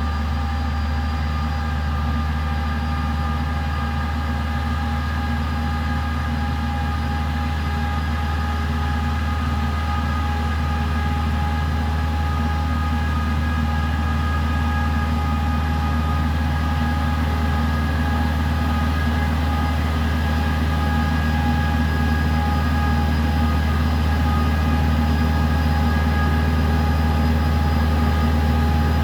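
A 52-horsepower speed sprayer (orchard air-blast sprayer) running steadily: a deep, even engine hum with several steady higher tones over it, growing slightly louder toward the end.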